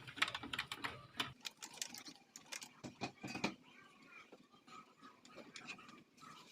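Scattered light clicks and taps, with faint voices in the background; a low hum stops about a second in.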